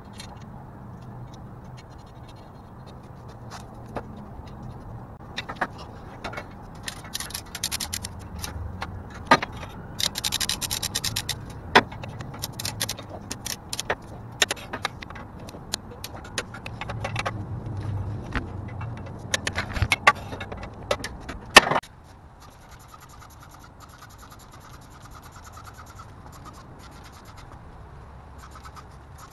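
Hand brush scrubbing grimy metal on the underside of a car engine: irregular runs of rasping strokes with sharp clicks and knocks. About three quarters of the way through the scrubbing stops abruptly, leaving only a faint hiss.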